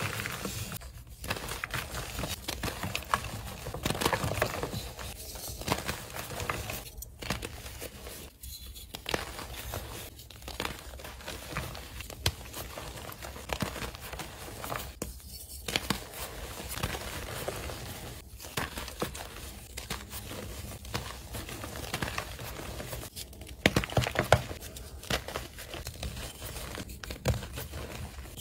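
Reformed gym chalk and loose chalk powder squeezed and crumbled by hand: a dense run of soft crunching and fine crackling, broken by brief pauses every few seconds.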